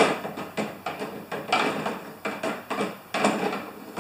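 A long screwdriver knocking and scraping inside a snow thrower's fuel tank as it pushes a rag in to soak up the fuel, a run of irregular clicks and scrapes, several a second.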